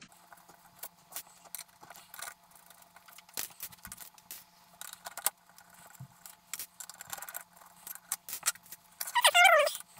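Small metal clicks and light rattles of a screwdriver and screws working against a metal equipment case as a small exhaust fan is unscrewed and pulled free. A short wavering squeak comes near the end.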